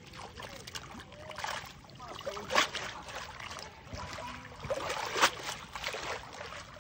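Water splashing and sloshing as a fishing net holding caught fish is swished and rinsed through shallow water, with two louder splashes about two and a half and five seconds in.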